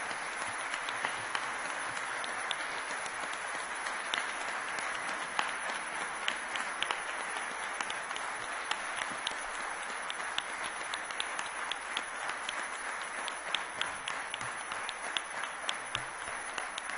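Audience applause: many people clapping steadily, a dense patter with single sharper claps standing out, holding at an even level throughout.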